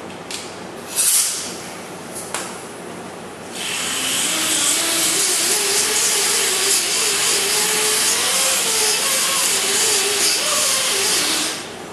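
A small air-powered grinder running for about eight seconds, a steady hiss with a whine that wavers as it is pressed against the steel frame rail end to clear coating off ahead of welding. Just before, the air hose coupling clicks on with a short hiss.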